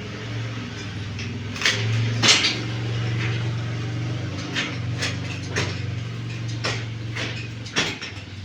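A series of irregular knocks and clacks, hard objects being handled or struck, the loudest about two seconds in, over a steady low hum.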